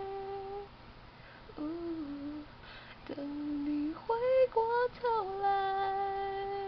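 A single voice singing a wordless melody without accompaniment. A long held note ends about half a second in, a few shorter notes follow, some of them higher, and then another long held note.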